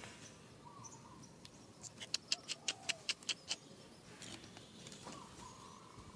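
A rapid run of about a dozen sharp, high-pitched animal chirps, about seven a second, starting about two seconds in and lasting about a second and a half.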